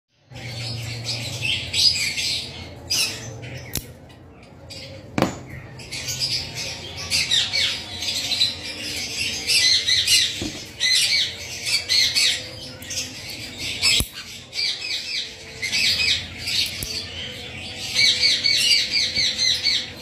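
Fischer's lovebird squawking over and over, harsh, rapid screeches while it is held in the hand for a beak trim. Two sharp clicks stand out, about five seconds in and again about fourteen seconds in.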